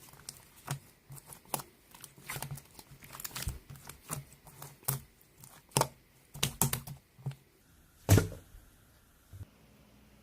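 Slime being squished and stretched by hand, giving irregular sticky clicks and pops, with the loudest pop about eight seconds in.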